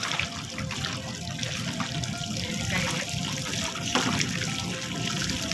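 Sea water splashing and lapping among the bamboo poles and net lines of a fish-trap platform, with a few sharper splashes.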